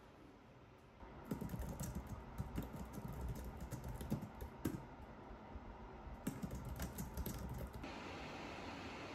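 Typing on a low-profile computer keyboard: a quick, uneven run of key clicks that starts about a second in. Near the end the clicks give way to a steady hiss.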